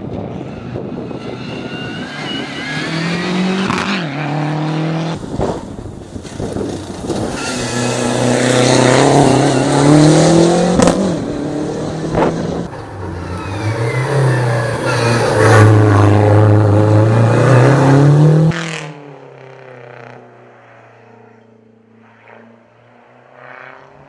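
Lancia Delta HF Integrale Evoluzione rally car's turbocharged four-cylinder engine revving hard, its pitch climbing and dropping through gear changes as it accelerates and brakes through hairpin bends. About 19 seconds in the loud engine cuts off abruptly, leaving only a faint, distant engine.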